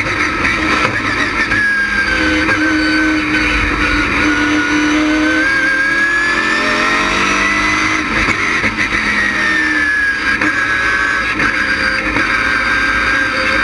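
LS6 V8 of a stock race car at racing speed, its pitch falling as it lifts for a corner, climbing again under acceleration from about five seconds in, then dropping once more near ten seconds.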